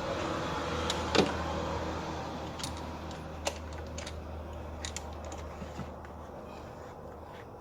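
A few separate metallic clicks of a socket wrench being worked on an ignition coil pack bolt, the loudest about a second in, over a steady low hum.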